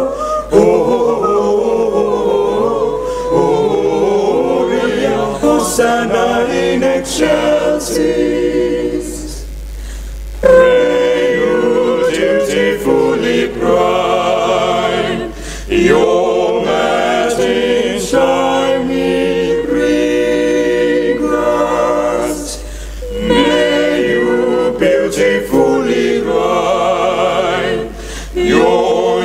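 Small a cappella vocal group of male and female voices singing a Christmas carol arrangement in close harmony, with several brief dips where the voices drop back.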